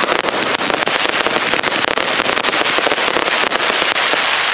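Fireworks crackling densely: a rapid, unbroken stream of small pops and bangs.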